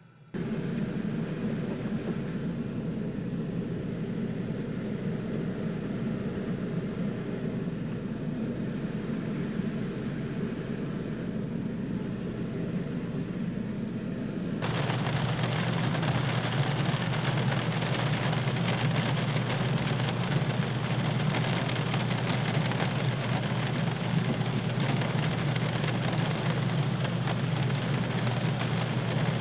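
Steady rain falling, turning abruptly louder and brighter about halfway through.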